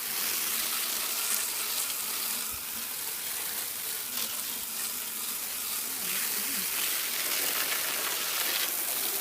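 Steady hiss of water spraying from a hose onto the air conditioner's evaporator coil, rinsing off the foam coil cleaner.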